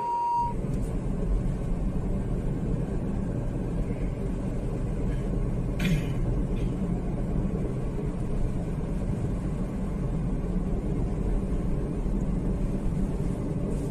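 A car interior while driving, with a steady low rumble of engine and road noise. A short single-pitch beep sounds in the first half second.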